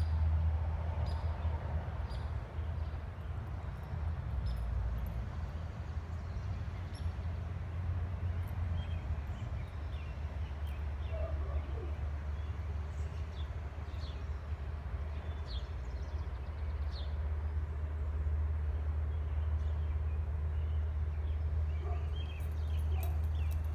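Backyard ambience: a steady low rumble with scattered short bird chirps.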